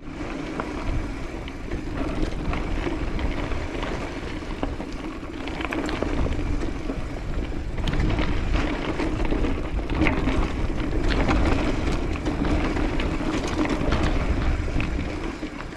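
Mountain bike riding downhill over a rough dirt and stone trail: tyres crunching, the bike rattling with repeated knocks from bumps, and a steady low rumble of wind on the microphone.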